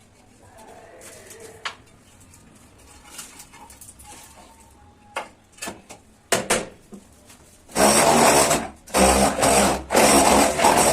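A few light knocks, then a power tool running loudly in a string of short bursts with brief pauses, starting about eight seconds in.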